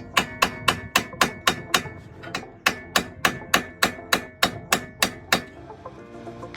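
Rapid hammer blows on metal, about four a second, ringing slightly and stopping a little over five seconds in, over background music.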